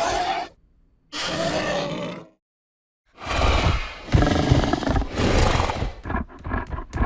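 Monolophosaurus dinosaur vocal sound effects, built mainly from pig vocalisations: a call tails off in the first half second, a second call lasts just over a second, then after a pause a longer, louder call with a deep rumble breaks into a quick run of grunts, about five a second, near the end.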